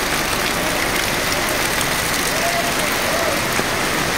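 Heavy rain falling steadily on a paved street and sidewalk, an even hiss of drops on wet ground.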